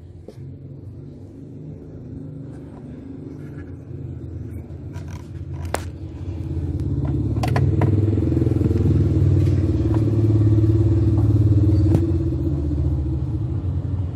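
A motor vehicle engine running with a low rumble that swells about six seconds in and eases a little near the end. A few sharp clicks and knocks sound over it.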